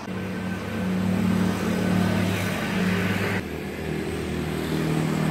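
Motor vehicle engines running in street traffic, a steady engine hum. It changes abruptly about three and a half seconds in to another, similar engine hum.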